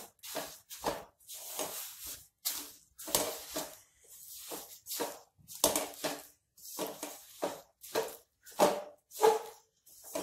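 A spatula stirring sesame seeds through sticky jaggery syrup in a metal kadhai, scraping the pan in quick strokes at about two a second.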